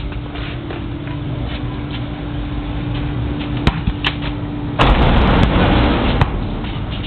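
A basketball knocks sharply a few times as it is bounced and thrown up at a hoop, and then a loud rush of noise lasts about a second and a half. A steady low hum runs underneath.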